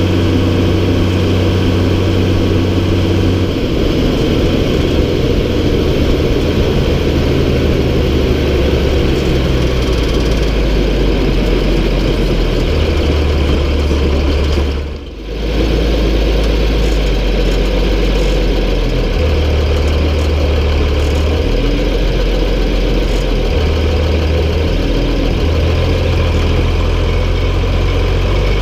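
MB Trac 1800's six-cylinder diesel engine running steadily, its low note shifting up and down several times as engine speed changes, with a brief dip in level about halfway through.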